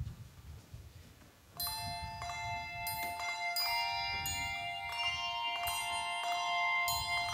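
Handbell choir begins playing about a second and a half in: handbells struck one after another in a melody, each note ringing on and overlapping the next.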